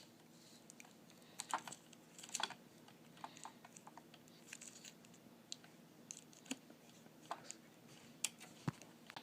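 Faint, irregular small clicks and light scrapes of a 9-volt battery and its snap connector being handled in the plastic battery compartment of a wireless wall switch.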